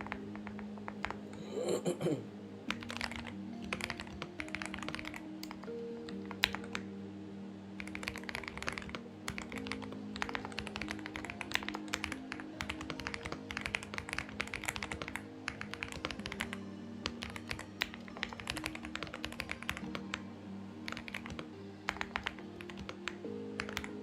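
Typing on a Xinmeng X98 mechanical keyboard: quick runs of key clicks with brief pauses between bursts, over soft background music with steady held notes.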